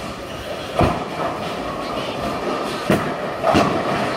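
Bowling alley din: bowling balls rolling down the wooden lanes with a steady rumble, broken by sharp knocks about a second in and again around three and three and a half seconds.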